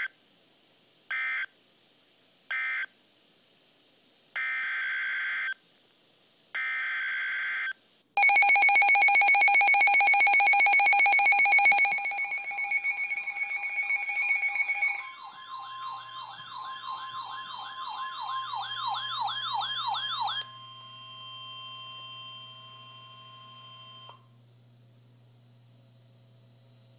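Emergency Alert System tones between two alert messages: three short bursts of screechy digital data, then two longer ones, followed by a loud attention tone that about 15 seconds in switches to a fast warble and then to a steady tone, cutting off about 24 seconds in. A faint low hum remains afterwards.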